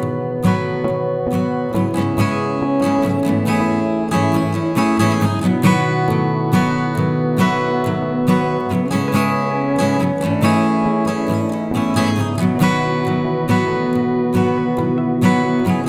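Background music: acoustic guitar playing, many plucked and strummed notes.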